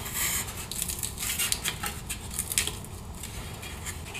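Steel brake backing plate and dust shield being handled and worked by hand: irregular metallic clinks, rattles and scraping as a part is worked loose from its rubber boot.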